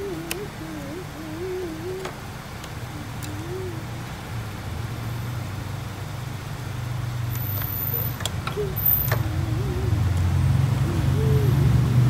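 Steady low hum of an engine running nearby, growing louder toward the end, with a few light clicks from plastic wiring connectors being handled at the fuse box.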